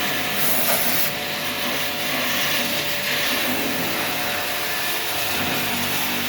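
Electric pressure washer running, its water jet spraying with a steady hiss over the motor's hum.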